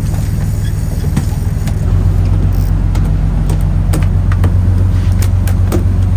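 An engine running steadily with a low drone that gets louder about two seconds in, with scattered light clicks over it.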